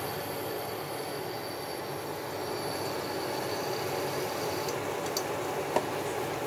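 Besan-batter pakodis frying in hot oil in a steel kadhai: a steady sizzle, with a few light clicks near the end.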